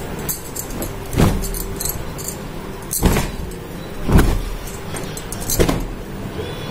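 Bedsheet fabric rustling as it is handled, with four sharp swishes and low bumps from the hand-held phone's microphone being jostled.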